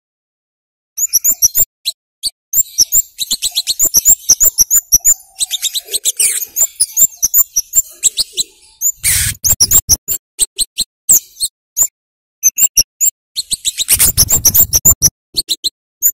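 Scarlet-headed flowerpecker (cabai jawa, kemade) giving rapid series of short, sharp, high 'cit' chirps in bursts with brief pauses. The calls start about a second in, with two louder, noisier bursts of sound midway and near the end.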